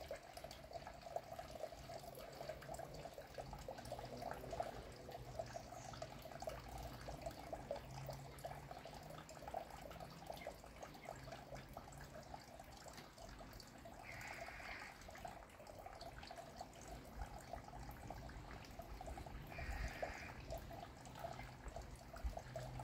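Water trickling and splashing steadily into a garden koi pond, over a low steady hum. Two short, faint higher sounds come about two-thirds of the way in and again near the end.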